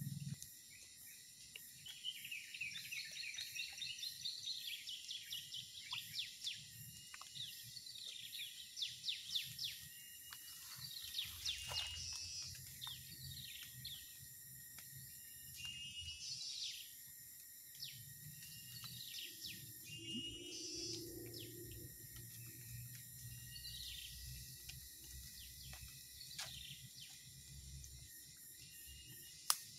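Birds chirping and singing in quick runs of short notes over a steady high insect hiss. There is a single sharp click near the end.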